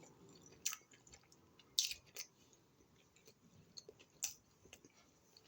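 A person chewing food close to the microphone: a few faint, short, wet crunches and mouth clicks, the strongest about two seconds in and again just past four seconds.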